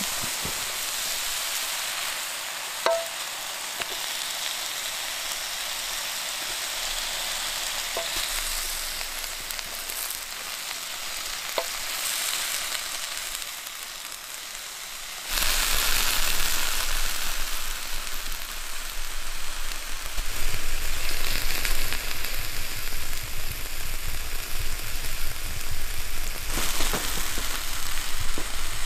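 Meat sizzling in a ridged grill pan over a campfire: a steady high hiss with a few small pops. About halfway the sound jumps suddenly louder into a rougher, fuller hiss.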